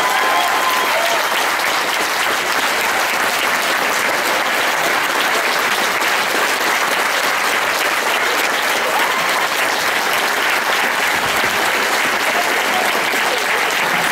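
Applause from a large audience, steady and sustained, with a few voices mixed in.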